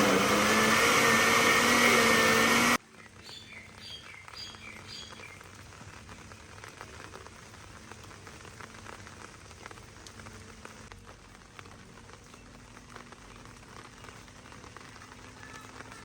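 A motor running loudly and steadily, cut off suddenly about three seconds in. Then a faint steady patter with a few short bird chirps.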